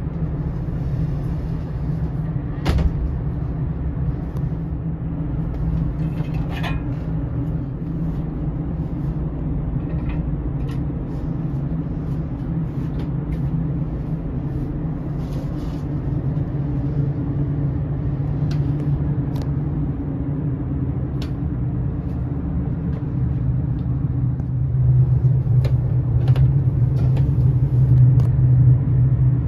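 Steady low drone of a ferry's machinery heard inside a passenger cabin, growing louder near the end. Scattered clicks and knocks come from a fold-down bunk being handled.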